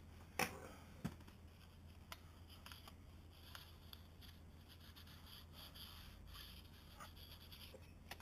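Faint handling sounds: two light knocks about half a second and a second in, then soft, on-and-off scraping and rubbing as a paper card and a straightedge are worked against the sanded hull surface to gauge the depth of low spots. A steady low hum runs underneath.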